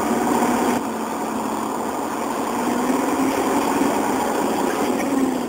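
An engine running steadily, its pitch wavering slightly.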